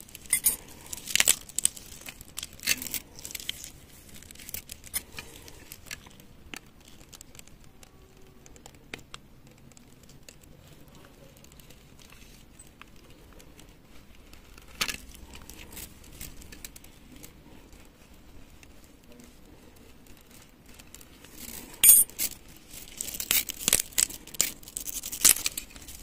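A utility-knife blade scraping and slitting the plastic sheath of a twisted-pair cable against a wooden board, with crackling and tearing as the sheath is split open and the aluminium foil shielding inside is pulled out, loudest near the end.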